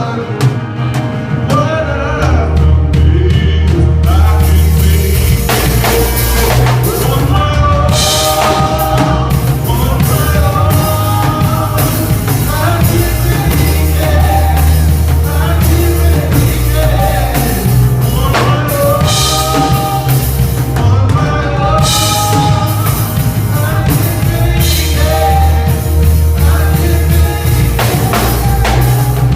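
Gospel song played loud on drum kit and heavy bass, with singing over the top and cymbal crashes now and then.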